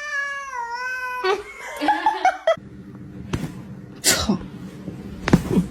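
A cat's long, drawn-out meow that falls slightly in pitch, followed by a few short, sharp noises and snatches of a voice.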